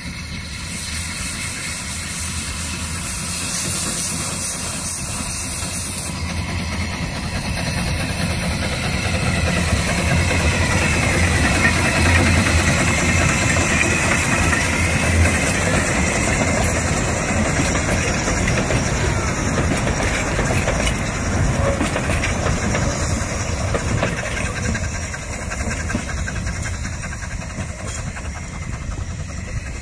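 Perry-built narrow-gauge steam locomotive hauling a carriage past: it comes closer, is loudest as it passes about halfway through, then draws away, with steam hissing from the cylinders over the running of the engine and wheels.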